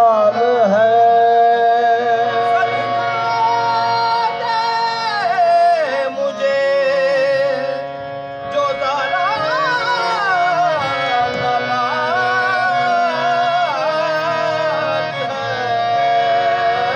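Qawwali: lead singers draw out long, wavering sung notes over two harmoniums, with a brief dip about eight seconds in before the singing picks up again.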